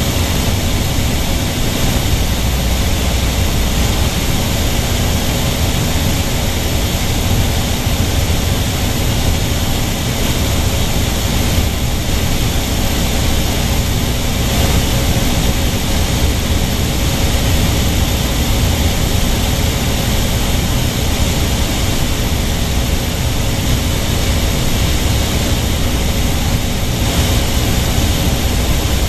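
Light propeller airplane's engine and propeller droning steadily in cruise, heard inside the cockpit as a constant low hum under a hiss of noise.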